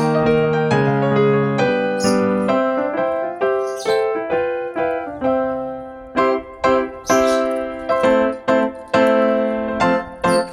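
Background piano music: a melody of struck notes over sustained chords.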